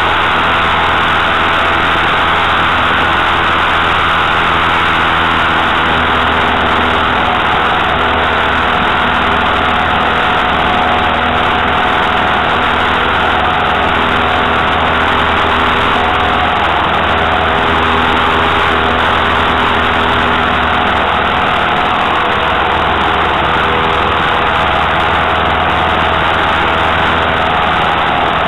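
Citabria tow plane's piston engine and propeller running steadily at high power during an aerotow climb, heard from inside the cabin.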